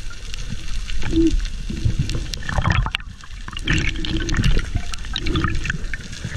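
Muffled underwater water noise picked up by a diving camera in its housing: uneven rushing and gurgling as the diver moves, with many scattered clicks and knocks.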